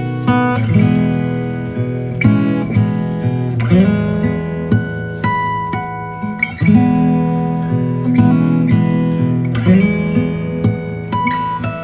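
Background music on acoustic guitar: strummed chords with picked notes ringing over them.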